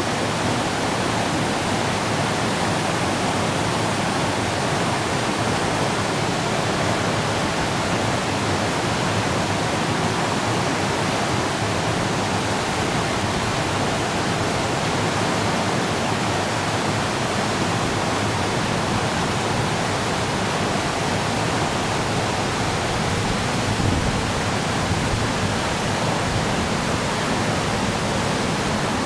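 River in flood, swollen by heavy typhoon rain, rushing past in a steady, loud roar of water.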